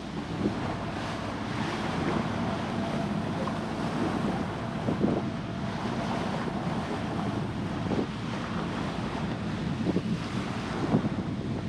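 Wind buffeting the microphone over the steady wash of the sea around a sailing catamaran under way, with a few brief louder thumps.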